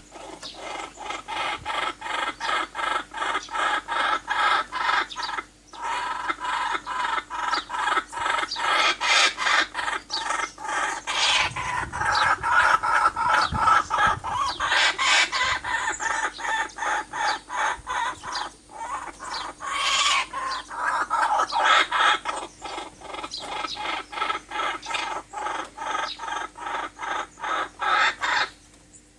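Birds calling in a fast, even run of short clucking notes, about three or four a second, with a few brief pauses.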